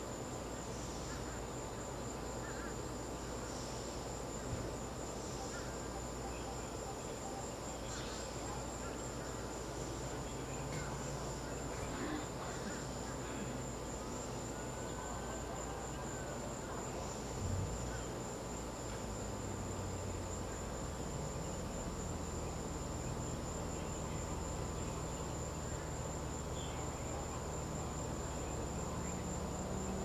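Crickets chirping in a continuous high-pitched chorus, a steady unbroken trill.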